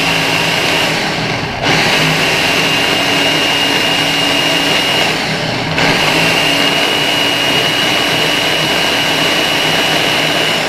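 Ninja Kitchen blender running loud, its blades crushing frozen banana pieces into soft-serve, with a steady high motor whine over the grinding. The whine breaks off briefly twice, about a second and about five seconds in.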